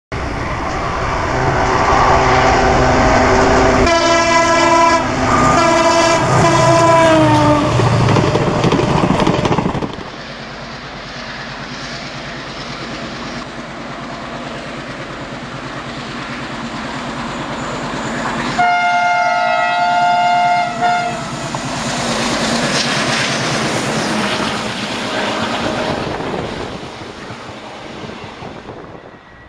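ALCO WDM-3A diesel locomotive running with an express train: heavy engine sound and a long multi-tone horn blast about four seconds in that drops in pitch near its end as the locomotive passes. After an abrupt cut the sound is quieter, with a second, shorter horn blast just before the middle, then the train's running noise swells and fades near the end.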